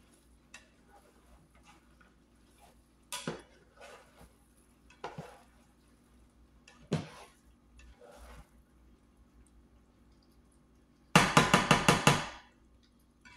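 Silicone spatula stirring and scraping ground-beef taco filling in a nonstick pan, with scattered soft scrapes and knocks. Near the end comes a quick run of about eight sharp clacks of the spatula against the pan in about a second.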